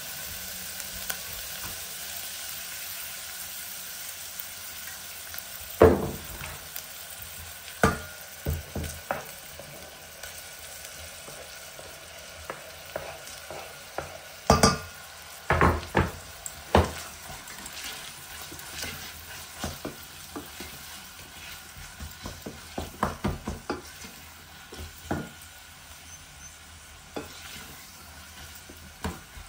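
Minced meat sizzling in a stainless steel pot, with a wooden spoon scraping and knocking against the pot. About halfway through, a cluster of louder clatters comes as chopped onion is scraped in from a wooden board, and the stirring and knocking go on.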